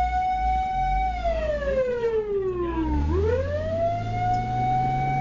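Fire engine siren wailing. The tone holds high for about a second, slides slowly down for about two seconds, then sweeps quickly back up and holds, over a low engine drone.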